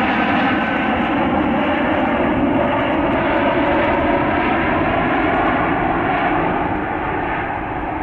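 Boeing 787-9 jet engines at takeoff thrust, a loud steady rumble that eases slightly near the end.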